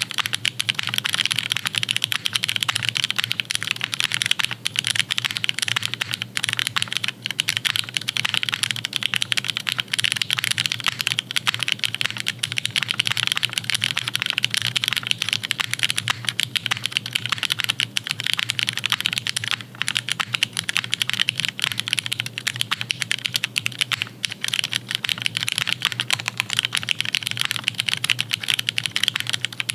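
Fast, continuous typing on a custom-built mechanical keyboard: a dense, unbroken run of clacky keystrokes.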